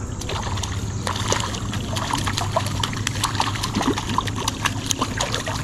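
Water splashing and trickling as a hooked brown trout thrashes at the surface of a shallow river, many small irregular splashes over steady running water.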